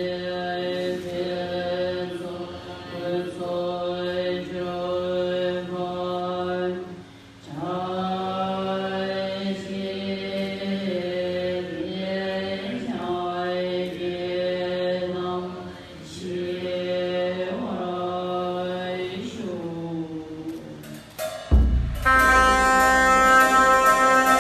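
Monks chanting a Tibetan Buddhist long-life liturgy in unison on a steady pitch, in long phrases with brief breath pauses. Near the end a deep drum beat sounds and ritual instruments take over with loud sustained tones.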